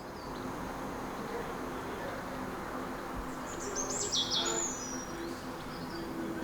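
Outdoor ambience: a steady low background hum, with a bird chirping in a short quick series about four seconds in.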